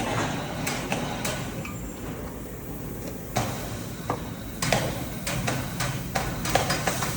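750 kVA diesel generator set running with a steady low hum, with irregular sharp metallic clicks and knocks over it.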